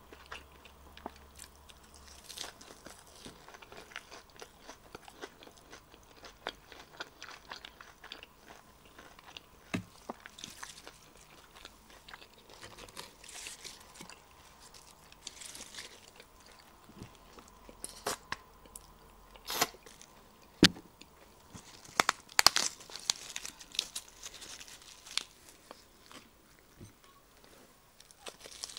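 Close-up eating sounds: crisp lettuce leaves rustling and crunching as they are handled and bitten, with wet chewing in between. The sharpest, loudest crunches come about two-thirds of the way through.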